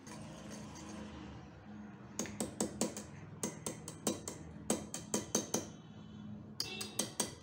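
Metal balloon whisk beating egg into creamed butter and sugar in a glass bowl: a soft swishing at first, then from about two seconds in, four quick runs of clinks as the wires strike the glass.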